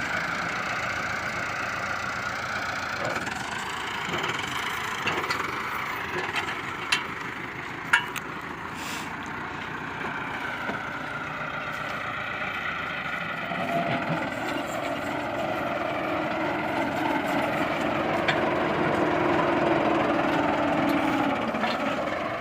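A heavy engine running steadily; its sound changes and grows somewhat louder past the middle. A couple of sharp knocks come about a third of the way in.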